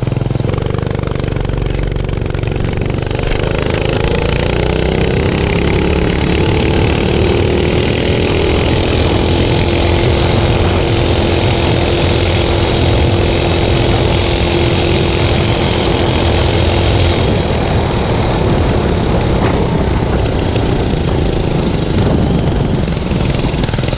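A mini bike's 5-horsepower Honda single-cylinder engine pulling hard from a standstill at full throttle, its pitch climbing through the first several seconds, then holding one steady note at top speed. About seventeen seconds in the steady note falls away as the throttle comes off, leaving engine and wind noise while the bike slows.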